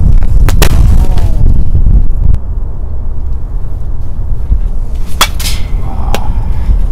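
Wind rumbling on the microphone with a sharp knock about half a second in. After a cut, about five seconds in, a single sharp crack of a bat hitting a pitched baseball, fouled off.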